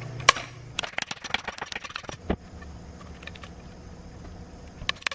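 Irregular light clicks and taps of small tools and fittings being handled, with one louder tap just after the start, over a faint steady low hum.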